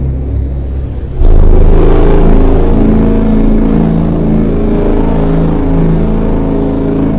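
A loud, low, droning groan of several held and wavering pitches, like the viral 2012 'strange sky sound' recordings. It starts suddenly about a second in over a steady low rumble.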